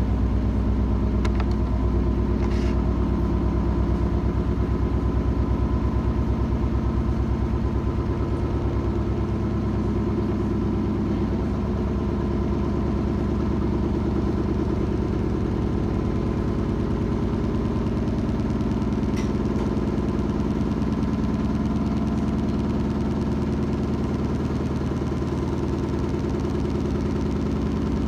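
Washing machine running: a steady motor hum with a fast, even pulsing vibration, and a couple of faint clicks.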